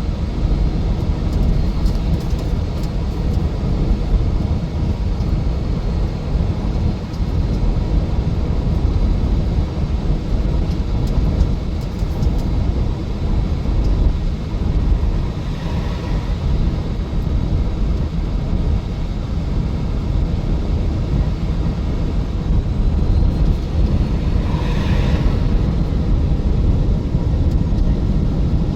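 Steady road and engine rumble heard from inside a moving vehicle at highway speed, with two brief swells of higher hiss, one about halfway through and one near the end.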